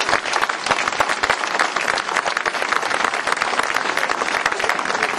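Outdoor audience applauding: many hands clapping at once in a dense, steady patter.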